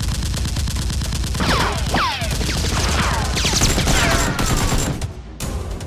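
Rapid automatic gunfire, a dense run of shots, with several sharp falling whistles in the middle; it breaks off shortly before the end.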